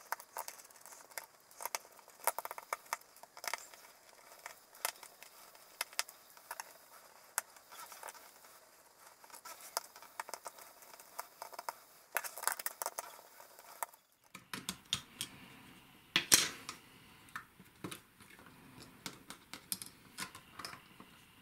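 Small clicks and scrapes of a precision Phillips screwdriver backing out tiny screws from a smartphone's internal plate, with light tapping and handling of the phone's parts.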